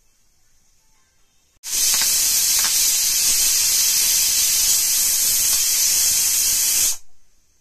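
Aluminium pressure cooker venting steam through its lid's weight valve: a loud, steady hiss that starts suddenly about two seconds in and cuts off sharply about five seconds later. The venting is the sign that the cooker has come up to pressure.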